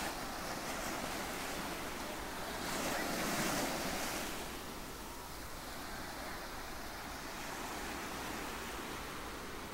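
Ocean surf breaking and washing up on a beach, a steady rushing hiss that swells a little about three seconds in.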